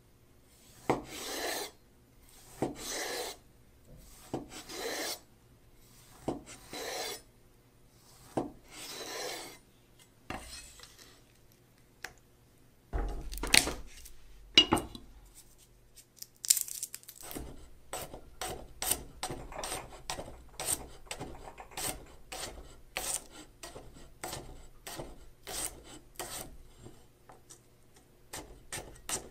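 Freshly sharpened kitchen knife cutting on a wooden cutting board. First come about five slow slicing strokes through tomato, each about a second long. After a couple of knocks in the middle, a wide-bladed knife makes quick, steady chops through garlic cloves, several a second.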